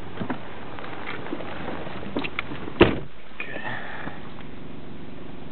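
Toyota Solara four-cylinder engine idling in reverse with the parking brake on, carrying the reverse-gear noise the owner is trying to trace after replacing all the engine and transmission mounts. A single sharp knock a little under three seconds in.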